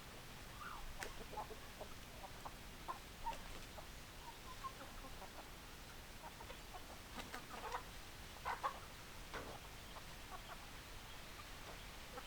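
Chickens clucking: short, scattered clucks from several birds over a faint background hiss, with a burst of louder clucks in the middle.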